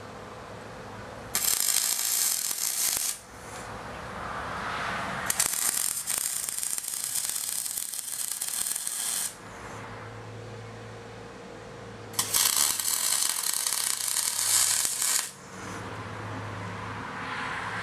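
Wire-feed welder arc crackling and sizzling in three runs of about two, four and three seconds, with a fourth beginning near the end, as a thin steel flange is welded onto a thicker cast throttle body. A steady low hum fills the gaps between welds.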